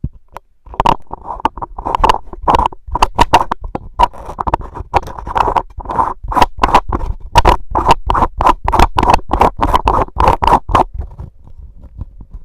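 Loud handling noise picked up by the iRig Mic HD itself as its metal mesh grille head is screwed back onto the body: a rapid, uneven run of scrapes and clicks from the threads and the grille rubbing under the fingers. It dies away about eleven seconds in.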